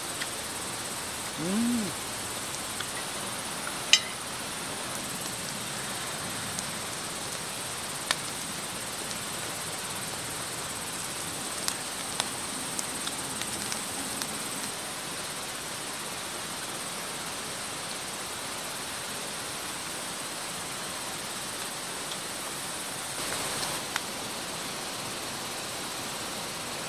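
Steady chorus of crickets and other insects, with a few scattered sharp clicks and a short low hum about two seconds in.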